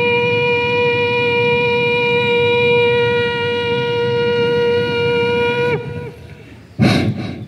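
A man imitating an electric train's horn with his mouth: one long, steady, high hoot that drops in pitch and cuts off after nearly six seconds. A sharp, noisy burst of breath follows near the end.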